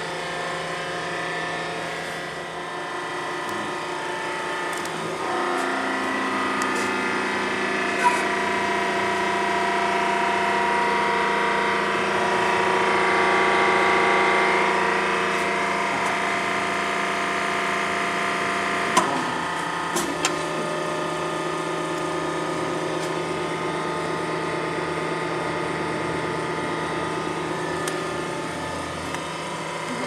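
Enerpac hydraulic power unit of a Parker 83C-001 hose crimper running through a crimp cycle. Its steady hum grows louder and more strained toward the middle as pressure builds. A sharp click comes about two-thirds of the way through, after which it runs on more lightly.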